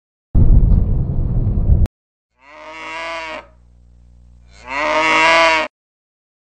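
A loud low rumble that cuts off suddenly, then a cow mooing: one long low call that swells twice, the second swell louder, before stopping abruptly.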